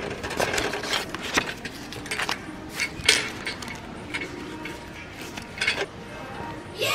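Irregular light clicks and clinks, like small items being handled, over a steady background hum of a large shop.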